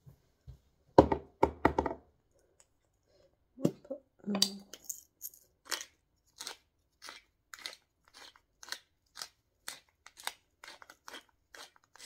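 Knocks and clatter about a second in, then a run of short crunching, crackling strokes, about two a second, as hands crumble something over a slow-cooker pot.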